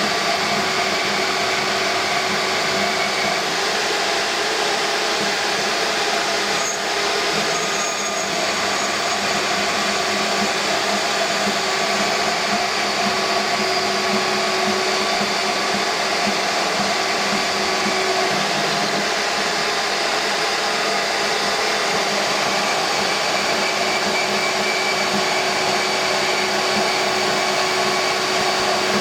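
Band saw running steadily, cutting the axle tabs off a mini bike frame.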